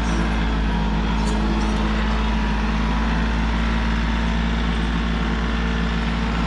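Compact tractor engine running at a steady speed, a continuous even hum with no change in pitch.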